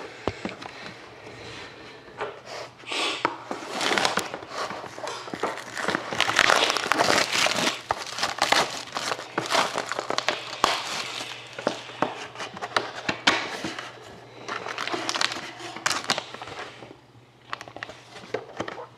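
Clear plastic shrink wrap being torn and crinkled off a sealed box of trading cards, in irregular crackling rustles, loudest about halfway through.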